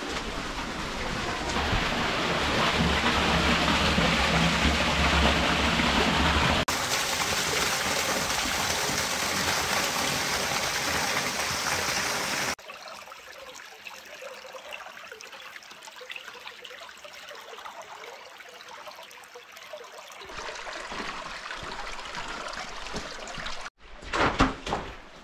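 Creek water rushing and trickling down a narrow pour-off in a sandstone slot canyon. It is loud for about the first twelve seconds, then much quieter. A few footsteps crunch on wet gravel near the end.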